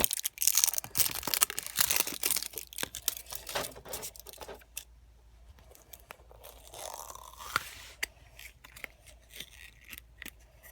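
A toy package being torn open by hand, with dense crackling and tearing for the first few seconds, then a brief rustle around seven seconds in.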